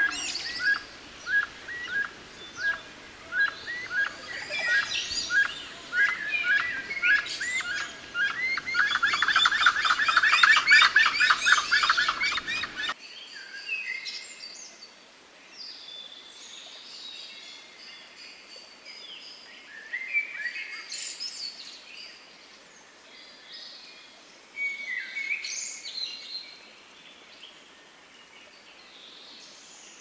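Gray-headed chachalacas calling: a run of repeated notes, about two a second, builds into a loud, dense chattering chorus that cuts off suddenly about halfway through. Scattered softer bird chirps follow.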